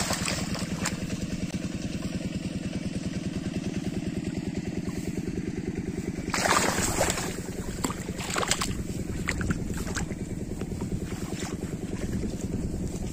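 A small engine running steadily with a fast, even pulse. Water splashes loudly about six and a half seconds in, and again about eight and a half seconds in, as a catfish thrashes in the shallow drain water.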